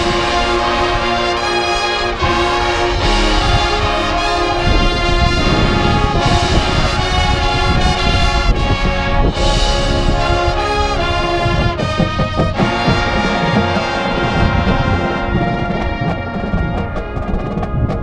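Drum and bugle corps brass section playing loud, full chords, with the front-ensemble percussion underneath.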